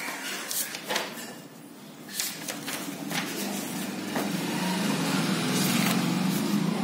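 Paper notebook pages being handled and turned, with scattered rustles and clicks. Under them a low hum builds from about four seconds in and is the loudest sound near the end.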